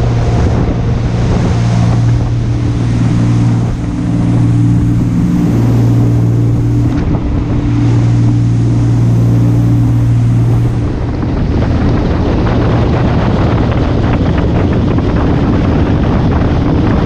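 Sportfishing boat running at speed: a steady low engine drone under the rush of the wake and wind on the microphone. The engine hum drops away about eleven seconds in, leaving the water and wind noise.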